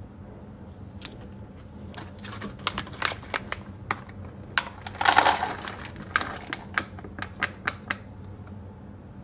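Light clicks and taps of small objects being handled on a tabletop while flower is weighed, with a short rustle about five seconds in, over a low steady hum.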